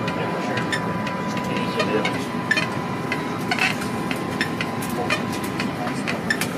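Submarine control-room ambience: a steady hiss of ventilation and equipment noise, with a thin steady tone that stops near the end and scattered small clicks.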